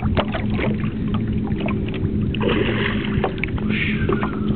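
A boat's engine running with a steady low hum. Splashing at the water's surface twice in the second half, from the hooked bluefish thrashing at the surface beside the boat.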